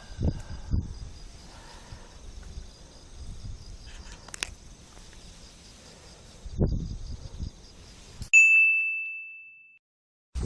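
A single bright ding, one high clear tone that rings and fades over about a second and a half against dead silence, like an edited-in chime effect. Before it, a steady faint insect buzz with a few low thumps of handling.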